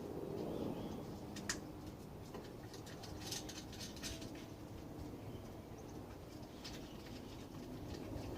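Small metal clicks and light scraping from nuts being hand-threaded onto the leg screws of a grill smoker, with one sharper click about a second and a half in.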